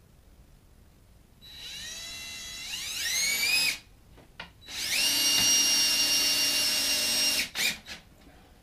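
Cordless drill driving a screw through a door frame into the framing: a first run whose whine climbs in pitch as it speeds up, a short pause, then a second steady full-speed run of about three seconds that stops suddenly, with a brief blip just after.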